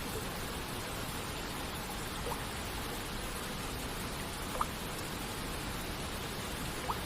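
Steady hiss of rain and falling water, with three single water-droplet plinks, short rising tones a couple of seconds apart; the middle one is the loudest.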